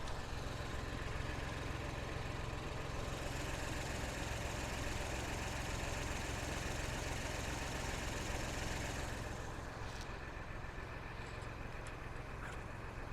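Ford Bronco's engine idling steadily, with a loud hiss of air escaping from a tire valve from about three seconds in until it cuts off about nine seconds in, as a preset tire deflator is fitted to the valve stem.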